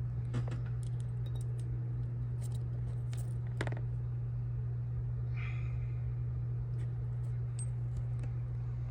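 Steady low background hum, with a few faint clicks and a short hiss about five seconds in.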